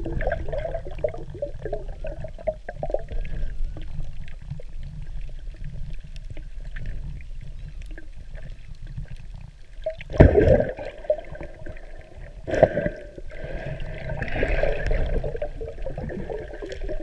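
Muffled underwater water noise picked up through a camera's waterproof housing: a steady low rumble with churning and gurgling. It swells into louder sloshing gushes about ten seconds in and again a couple of seconds later.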